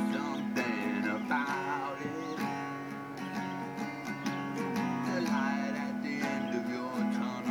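Guitar music: strummed chords, with a melody line over them that bends and wavers in pitch.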